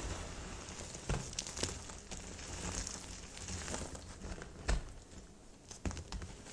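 Brittle, microwave-puffed baby soap crunching and crumbling as it is cut, a continuous dry crackle with four sharper cracks.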